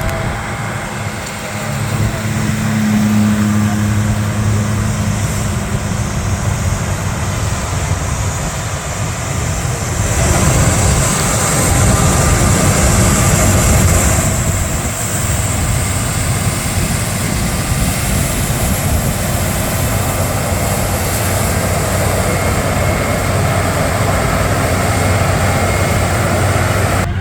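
Combine harvester running while harvesting corn: a steady heavy engine hum mixed with the hiss of the machine working. It gets louder for a few seconds about ten seconds in.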